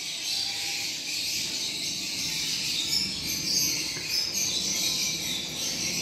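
A flock of small cage birds chattering and chirping steadily, a dense high-pitched twittering.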